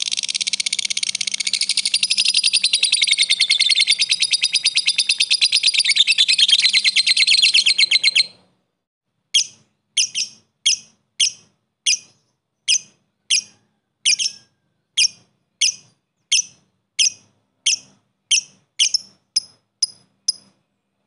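Blue masked lovebird chattering: a long, fast, unbroken rattle of high clicks (the 'ngekek'), which stops after about eight seconds. After a short pause come single sharp ticking chips ('ngetik') about twice a second, a little quicker near the end.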